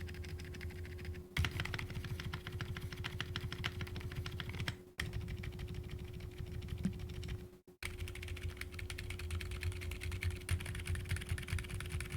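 Fast typing on a mechanical keyboard with Akko Penguin silent tactile switches: a dense run of soft, damped keystrokes. It breaks off briefly about a second in, around five seconds in and near eight seconds in, over a faint steady hum.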